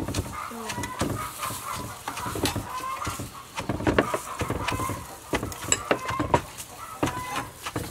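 Wooden pestle pounding in a clay mortar, irregular knocks about one or two a second, pounding the ingredients for a papaya salad.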